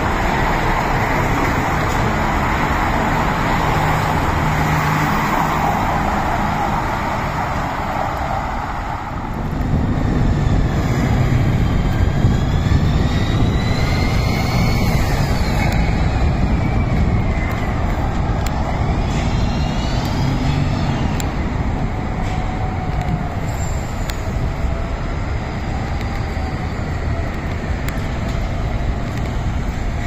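City street traffic ambience: a steady rumble of passing cars and buses, shifting to a fuller, lower traffic sound about a third of the way in, with a few high gliding squeals in the second half.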